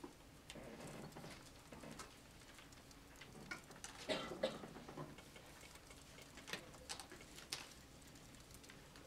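Faint, scattered clicks, taps and short rustles of people shifting and handling things in a quiet lecture hall, with a small cluster of soft rustling about four seconds in.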